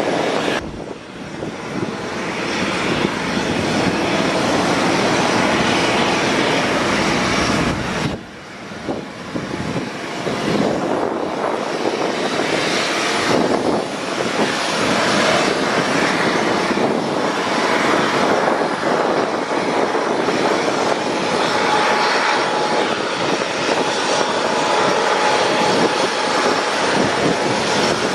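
Loud, steady aircraft engine noise. It drops away suddenly for a moment about a second in and again about eight seconds in, and a faint steady whine comes in over the last several seconds.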